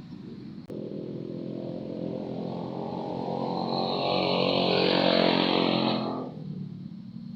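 A small engine running as it passes close by, growing louder to a peak about five seconds in and then fading away.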